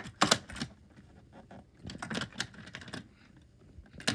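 Light clicks and clatters of small plastic toy train cars being handled: a couple just after the start, a quick cluster about two seconds in, and another near the end.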